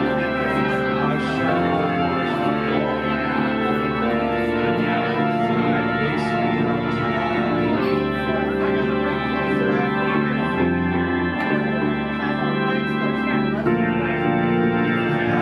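Live rock band music led by held organ chords that change every few seconds.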